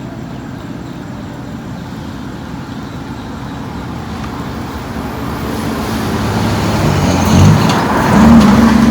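A motor vehicle's engine running over a steady noisy rush. It grows louder through the second half and is loudest near the end.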